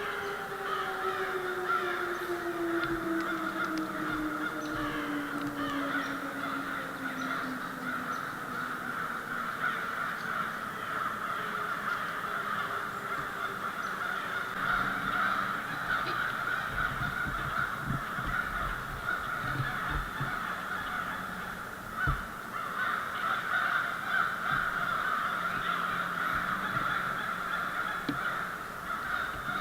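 Crows cawing over and over. A distant siren winds down in pitch during the first several seconds.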